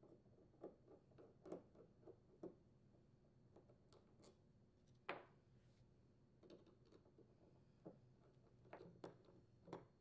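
Faint, scattered small clicks and ticks of a Phillips screwdriver backing out the float-bowl screws of a Briggs & Stratton carburetor, with a slightly louder tap about five seconds in.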